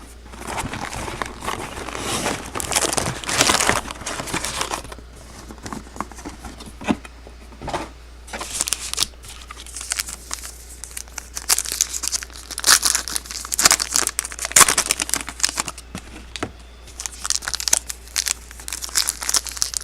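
2012 Topps Magic Football trading card packs being torn open by hand, the wrappers crinkling and tearing in irregular bursts as the cards are pulled out.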